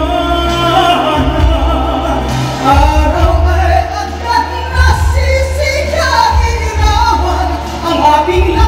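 A woman singing live into a handheld microphone over amplified instrumental accompaniment with a strong bass line, her voice gliding between held notes.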